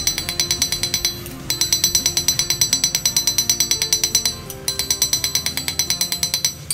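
Small hammer tapping fast on a steel karambit blank laid on an anvil, about eight light metallic strikes a second with a high ring, in runs with two short pauses, texturing the steel surface. Background music plays underneath.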